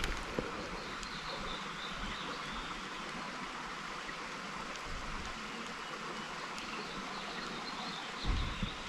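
Creek water running steadily over rocks, an even rushing hiss. A brief low rumble comes in near the end.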